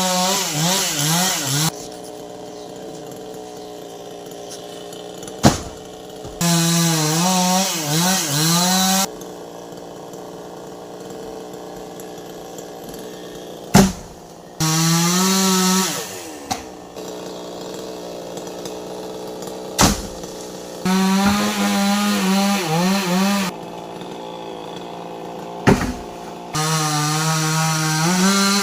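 Chainsaw cutting a coconut palm, revving up in five bursts of two to three seconds with its pitch wavering under load, and dropping back to a steady idle between them. A short sharp click comes just before most of the bursts.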